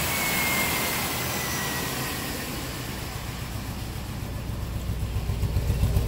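A 1997 pickup's V8 idling roughly with a misfire: a dead cylinder, which the mechanic traces to the number two injector pulsing but not delivering fuel. Hiss and a faint whine give way to low, uneven exhaust pulses that grow louder near the end.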